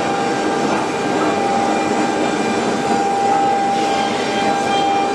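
Nesting CNC router running steadily: a constant whine over a continuous mechanical rush, with no pauses or impacts.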